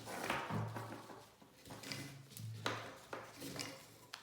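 Rifle sling being fed through a front attachment loop: nylon webbing rustling and sliding, with several light clicks and taps from its hardware against the rifle.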